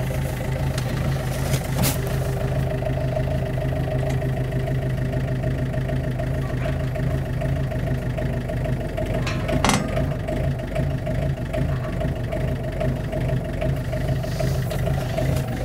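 Compact excavator's diesel engine running steadily, with a sharp knock about two seconds in and another about ten seconds in.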